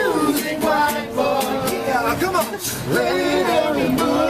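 Men singing along to a strummed acoustic guitar.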